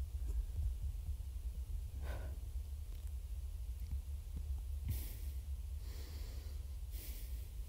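Spaghetti being slurped: short noisy sucking slurps, the loudest about five seconds in and again near the end, over a steady low hum.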